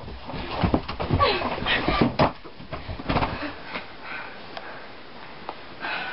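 A door knocking and banging and the thumps of hurried movement, mixed with short bursts of voice, for about the first three seconds, then it goes quiet.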